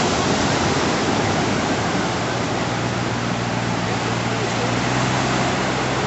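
Small waves breaking and washing up on a sandy beach: a steady rush of surf. A low steady hum joins about halfway through.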